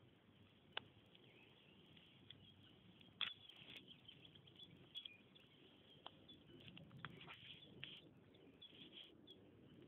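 Faint birds chirping in the background, with two sharp clicks, about a second in and about three seconds in.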